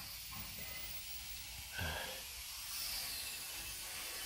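Steady, faint hiss of background noise, with one short sound about two seconds in.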